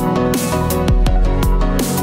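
Electronic background music with a steady beat and deep bass notes.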